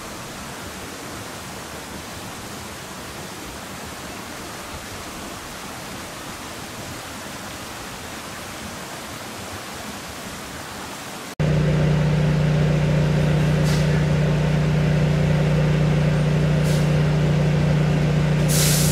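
A steady rushing noise for about the first eleven seconds, then an abrupt change to a utility bucket truck's engine idling loudly with a steady low hum. A few brief hisses come over the engine, the last and loudest near the end.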